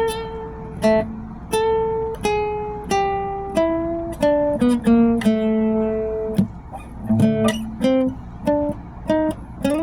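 Guitar playing a slow melody one note at a time, each plucked note ringing and dying away, with a few quicker pairs of notes.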